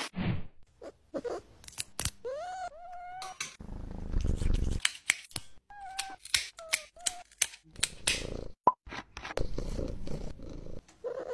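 Scottish fold cat meowing while its claws are trimmed: a rising, drawn-out meow about two seconds in and a few shorter meows around six to seven seconds. Sharp clicks of the nail clippers and handling noise fall between the calls.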